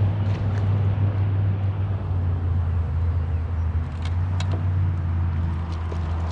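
Steady low motor hum, with a couple of faint clicks about four seconds in.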